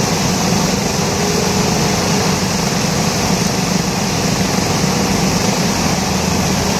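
Several bumper boats' small engines running together in a steady, constant drone.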